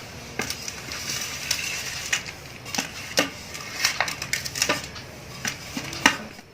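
Irregular clicks, taps and scrapes of hands and kitchen utensils at work on a cake, with the sharpest tap near the end.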